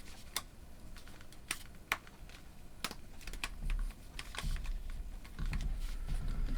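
Scattered sharp plastic clicks and light taps from handling a Sennheiser HD202 headphone earcup while a clip-on part is worked around its edge to clip it into place. Dull low knocks come in during the second half.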